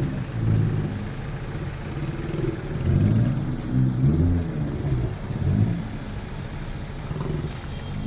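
Off-road 4x4 engine revving, its pitch rising and falling in several uneven surges.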